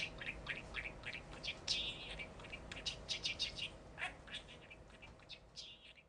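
Budgerigar chattering: a quick run of short, high chirps broken by a few longer warbled notes, fading out near the end.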